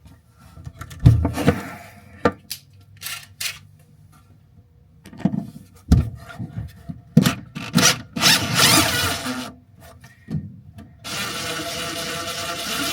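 Tools being handled: scattered knocks, clatter and scraping against the oven and cabinet. About eleven seconds in, a small motor, likely a cordless drill/driver backing out the mounting screws, starts and runs steadily.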